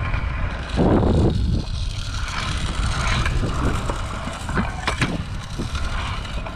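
Kick scooter wheels rolling over a concrete skate park surface, picked up with a steady rumble by a helmet-mounted camera, with a louder rush about a second in and a few sharp clacks near the end.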